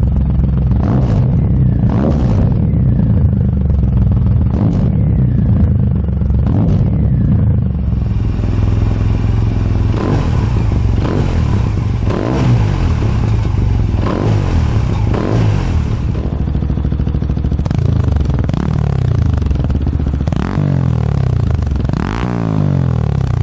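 Motorcycle engines idling and being revved in short throttle blips at a standstill, several bikes one after another: among them a Honda Silver Wing GT600 scooter's parallel twin through an aftermarket Moriwaki exhaust and a Yamaha Serow 250's single-cylinder engine through a Beams exhaust.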